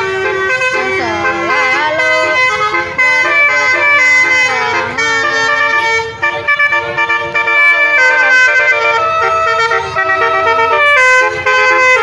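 Telolet basuri horn, a multi-tone musical car horn, playing a melody of held notes that change in steps.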